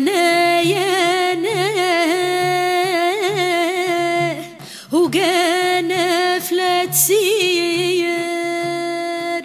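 A solo voice singing long, ornamented held notes in the Tunisian Bedouin style, in two phrases with a short break about halfway, over a low repeating beat.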